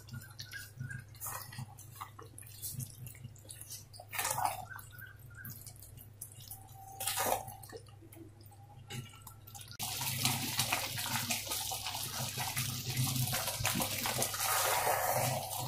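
Thick vegetable khichuri simmering in an aluminium pot, its bubbles plopping, with two louder knocks. About ten seconds in, a steady bubbling hiss sets in and gets louder.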